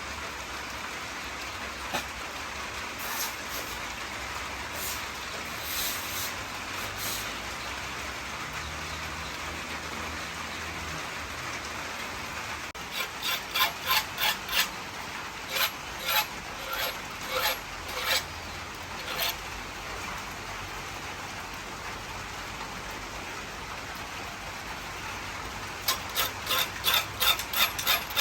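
Two runs of short, quick strokes of a hand tool working the steel blade of an old sickle, about three strokes a second, over a steady background hiss.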